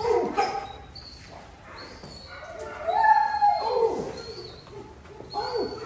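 Puppy whining and yelping in drawn-out, falling cries: one at the start, a longer one around three seconds in, and another near the end. The cries fit a puppy straining on its leash, held back from its littermate's tug.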